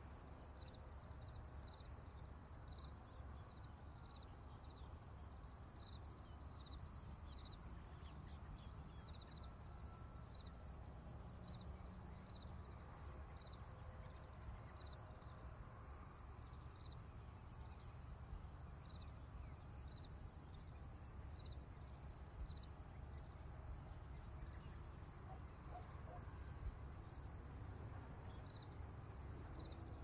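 Crickets chirping at dawn in a steady, faint, high chorus, with one insect's short chirp repeating about once a second over a low steady rumble.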